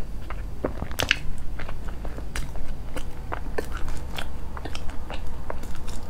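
Close-miked chewing of a flaky egg-yolk and red-bean-paste pastry: irregular crisp crackles and clicks as the crust breaks up in the mouth, the loudest crunch about a second in.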